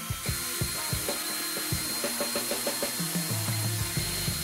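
Drill spinning a brass wire wheel brush against the steel handbrake shaft of a rear brake caliper, scrubbing off dirt: a steady motor whine over the hiss of the bristles.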